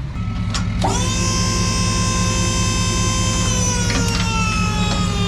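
Electric-hydraulic trailer jack's motor whining, starting about a second in, holding a steady high pitch, then gradually dropping in pitch. A truck engine idles underneath.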